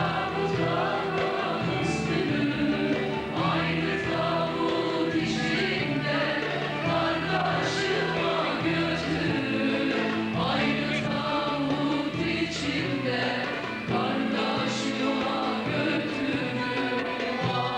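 Instrumental interlude of a Turkish folk lament played by a band: sustained held chords, with a few sharp percussion hits every few seconds.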